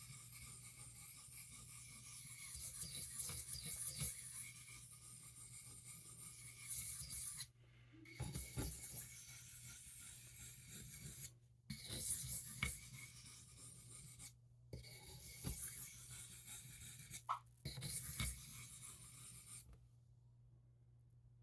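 D2 steel knife blade drawn lightly over an Arkansas sharpening stone, a soft scraping hiss in repeated passes with short breaks between them, as the burr is worked off the edge. A steady low hum runs underneath, and the strokes stop about two seconds before the end.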